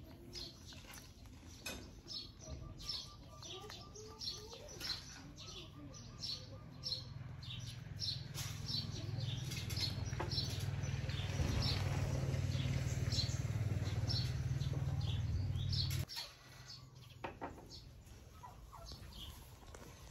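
Macaque grooming a person's hair close to the microphone: rapid small clicks and smacks as it picks through the strands with its fingers and lips. A low rushing rumble starts about eight seconds in, grows loudest, and cuts off suddenly a few seconds before the end.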